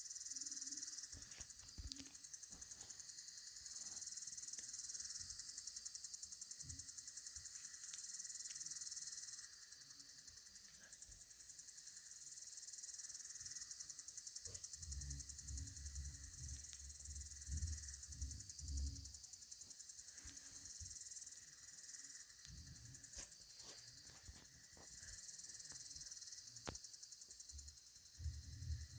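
Spinning lawn sprinkler: a steady high hiss of water spray with a fine rapid texture, swelling and fading as it turns. Low rumbling comes and goes in the second half.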